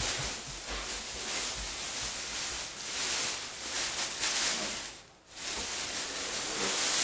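Plastic packaging rustling as it is handled and pulled off the drum, with a brief pause about five seconds in.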